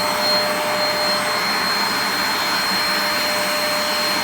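Hoover Spotless portable carpet cleaner running steadily, its suction motor giving an even rush with a constant high whine, as it sprays cleaning solution onto a car seat.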